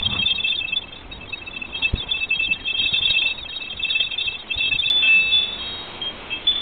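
Metal wind chime ringing in the breeze, several overlapping tones, heard thinly through a security camera's microphone.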